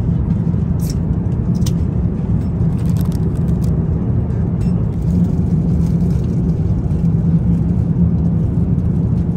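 Steady, loud cabin roar of an Airbus A350-900 in flight: engine and airflow noise heavy in the low end, with a steady hum running under it. A few faint light clicks sound in the first few seconds.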